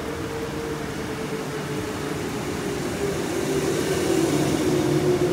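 Electric suburban train running: a steady rumble under a whine that slides slowly down in pitch, growing louder toward the end.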